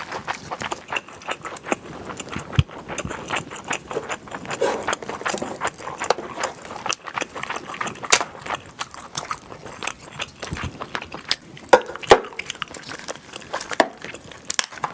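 Cooked king crab shell being cracked and pulled apart by hand, with chewing: a dense run of small crackles and clicks, with a couple of sharper snaps about twelve seconds in.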